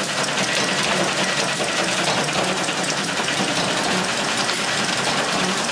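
FAS 6 flag assembly machine running: a steady, rapid mechanical clatter that does not let up.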